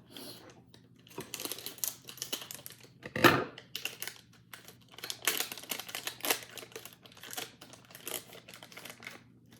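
Plastic snack wrapper crinkling and crackling in the hands as an individually wrapped cake is opened, a string of short crackles with a sharper, louder one about three seconds in.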